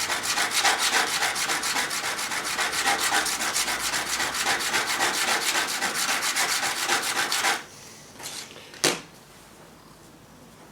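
A chisel bevel being rubbed back and forth on a wet fine-grit diamond sharpening stone in quick, even scraping strokes. The strokes stop suddenly about seven and a half seconds in, and a single short knock follows about a second later.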